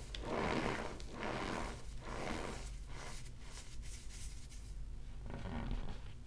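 Hands squeezing and crumbling pressed cornstarch blocks topped with baking soda: the packed powder crunches and squeaks as it is compressed, in a series of squeezes about a second apart.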